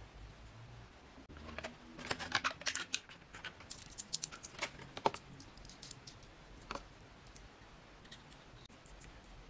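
Small plastic and metal clicks and taps of an action-camera mini extension tripod and its mount adapter being handled and fitted together: a quick run of clicks from about one and a half to five seconds in, then a few scattered ones.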